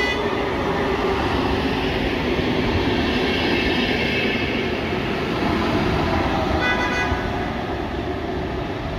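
VR CAF Sm4 electric multiple unit running past along the platform: a steady rumble of wheels on rail with motor and air noise, with a high squeal rising out of it in the middle and another short high squeal about seven seconds in.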